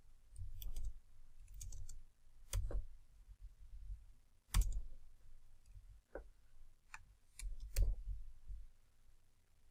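Irregular keystrokes on a computer keyboard: about ten sharp clicks spread unevenly, some in quick pairs, with dull low thuds beneath them.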